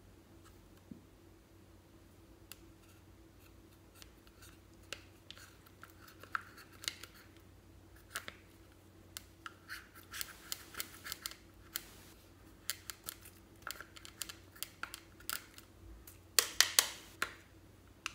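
Spatula scraping pressed eyeshadow out of the pans of an eyeshadow palette in short, quick scratchy strokes, with a few much louder clicks near the end.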